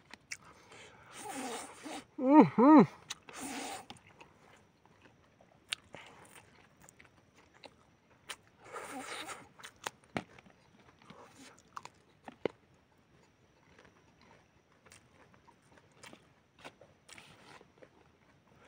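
Close-up eating sounds: noodles slurped in short hissing sucks, chewing, and small scattered clicks, with quiet stretches between. A brief voice-like call with a bending pitch about two and a half seconds in is the loudest sound.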